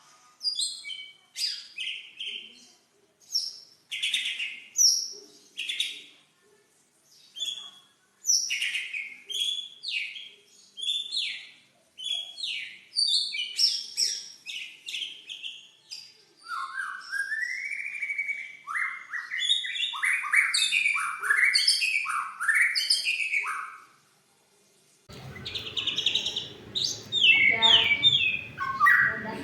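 White-rumped shama (murai batu) singing: loud, varied whistled phrases with short pauses between them, growing faster and denser past the middle. This is a trigger recording meant to provoke a silent shama into song. About 25 s in, the song continues over a steady background hiss.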